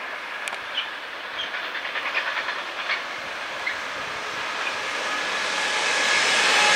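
Electric freight train of empty flat wagons approaching and passing. The running noise swells steadily, wheels clack over rail joints and points, and a faint high wheel squeal builds near the end as the wagons roll through the curve.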